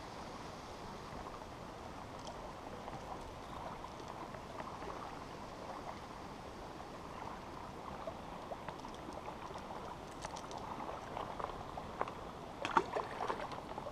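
Steady lapping of small waves on the lake's rocky shore. Near the end comes a short cluster of sharp clicks and taps.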